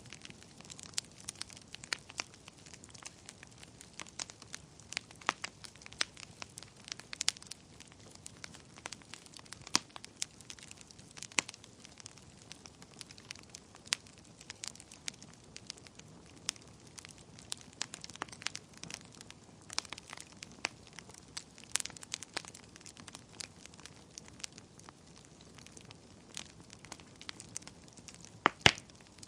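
Wood fire burning in a fireplace, with irregular sharp crackles and pops over a low, steady hiss of flame; one louder pop near the end.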